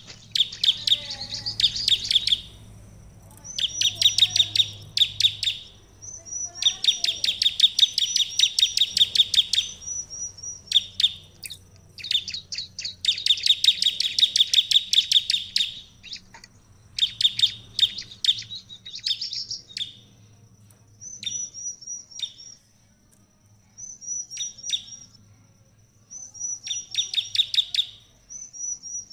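Bar-winged prinia (ciblek) singing in full song: phrases of rapid, chattering repeated notes a few seconds long, separated by short pauses, with a thin high note held between phrases.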